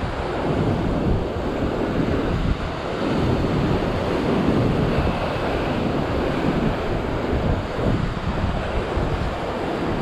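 Heavy ocean surf breaking and surging against sea-cliff rocks, a continuous rumbling wash that swells louder around the middle, with wind buffeting the microphone.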